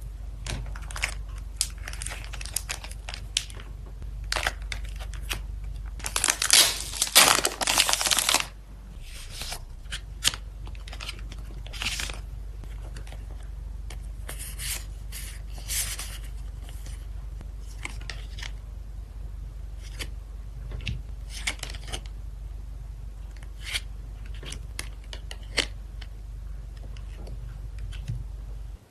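Packaging being opened by hand: plastic wrap and paper tearing and crinkling, with scattered taps and rustles, and one long loud tear about six to eight seconds in. A steady low hum sits underneath.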